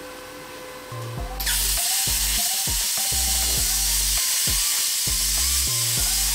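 PLC 55 Pro air plasma cutter striking its arc about a second and a half in, then hissing steadily as the torch cuts through steel plate, with an uneven low buzz underneath.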